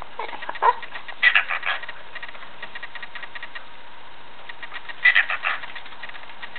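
Cockatiels chattering: a short low warble at the start, then two bursts of quick, shrill chirps about a second in and about five seconds in, over a steady soft twittering.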